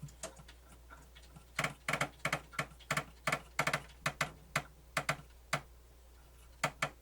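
Irregular run of sharp plastic clicks, about two to three a second, with a pause and a few more near the end: the Pioneer CT-W802R cassette transport mechanism being worked by hand, making a clicking noise the repairer doesn't like.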